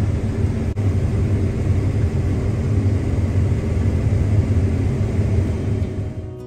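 Heavy farm machinery engine running steadily with a loud, low rumble, briefly cut out for an instant under a second in.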